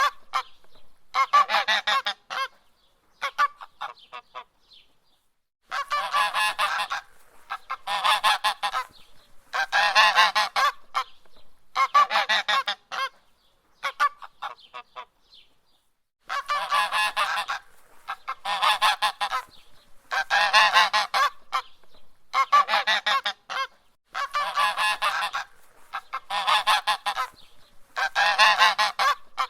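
A goose honking in repeated bursts, each about a second long, roughly every two seconds. The honking pauses for a few seconds near the start and again about halfway through.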